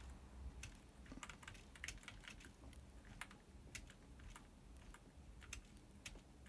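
Faint, irregular clicking of computer keyboard keys, some in quick pairs.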